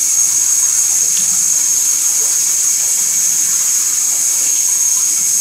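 Water spraying steadily from a handheld shower head onto a wet dog in a bathtub.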